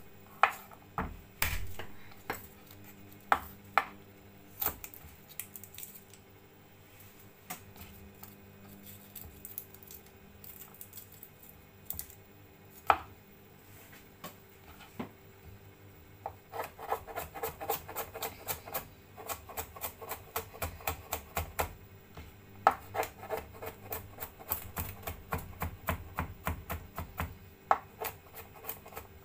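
Cleaver on a wooden cutting board. There are a few separate knocks in the first seconds and one near the middle as garlic cloves are crushed, then fast, steady chopping through the second half as the garlic is minced.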